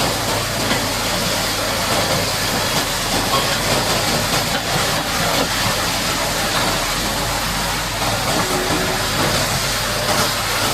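High-pressure water jet spraying and hissing against a mud-caked bulldozer, with an engine running steadily underneath.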